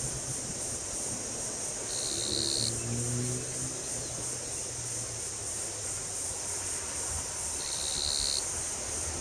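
Cicadas chirring steadily in a high, even drone, with two short lower buzzes, one about two seconds in and one near the end. A faint low rumble of a distant approaching train lies underneath.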